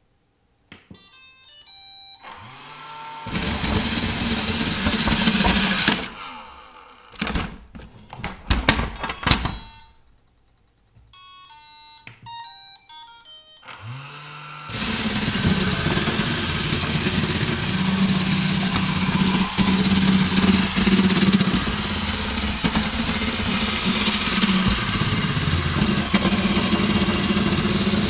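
iRobot Roomba plays a short electronic beep tune, then its brush and vacuum motors run with a steady whirring hum for a few seconds and stop, followed by a cluster of clicks. About eleven seconds in it plays a second beep tune. Its motors then spin up with a rising whine and run steadily at full power.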